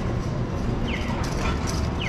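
City street ambience with a steady low rumble, and a short high chirp that falls in pitch repeating about once a second.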